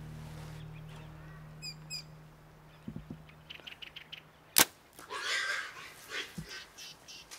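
Birds calling in the bush, with short high chirps and a quick run of chirps, as a low music drone fades out. About two-thirds of the way in there is a single sharp click, the loudest sound, followed by a harsher, longer squawk-like call.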